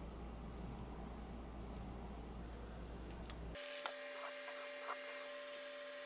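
Soft, steady scraping of a knife edge drawn across a 3000 grit whetstone, polishing the edge. About three and a half seconds in, the sound cuts abruptly to a quieter background with a steady hum and a few light clicks.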